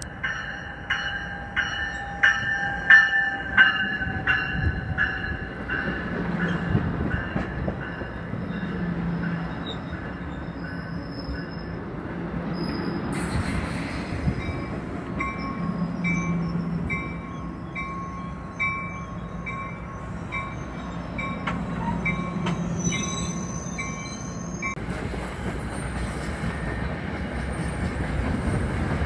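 NJ Transit commuter train with multilevel cars rolling into the platform, its wheels squealing high with regular clanks. It then stands rumbling while a repeated beep sounds. Near the end another train's rolling noise takes over.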